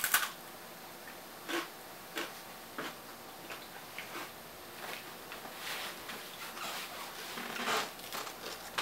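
A sharp crunch right at the start as someone bites into a cracker, then scattered soft clicks and rustles of a person moving about and handling things in a kitchen, busiest near the end.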